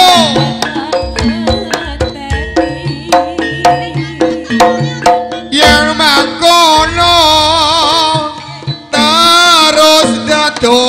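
Javanese jaranan music: quick hand-drum strokes on the kendang under a melody of short notes. Past the middle, the melody turns into long, wavering held notes.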